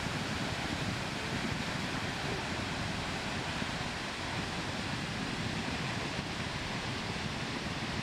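Lower Duden waterfall, a cascade about 50 metres high, rushing steadily as it pours down the cliff into the sea.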